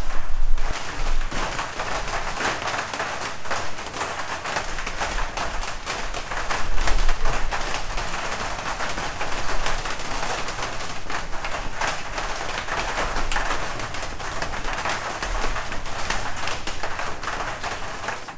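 Heavy rain falling on the roof overhead: a steady, dense patter.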